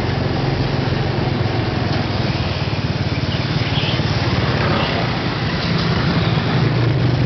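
Small motorcycle engine running steadily while riding, with wind and road noise. The engine note grows a little louder toward the end.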